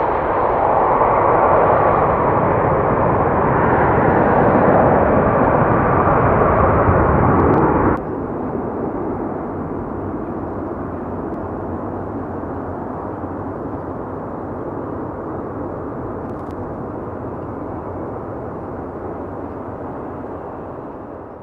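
Airbus Beluga XL's twin Rolls-Royce Trent 700 turbofans at take-off power as it lifts off and climbs away: a loud, steady jet noise with a whine running through it. About eight seconds in it drops abruptly to a quieter, duller noise that slowly fades.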